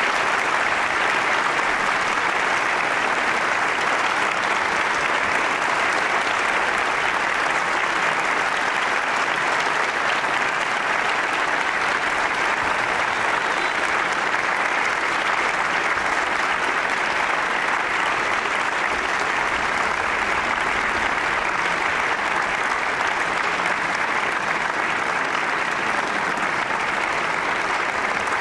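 Large audience applauding, a steady, unbroken wash of clapping that neither swells nor dies away.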